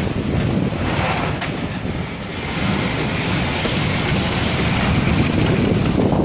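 Strong typhoon wind rushing and buffeting the microphone with a low rumble. The rushing hiss grows stronger about halfway through.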